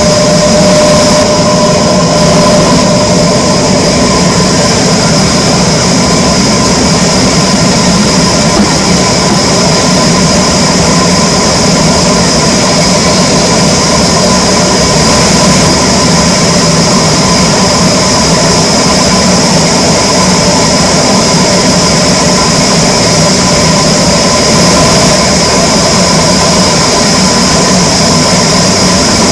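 Power saw running steadily and cutting teak wood: a continuous loud mechanical drone with a steady high whine.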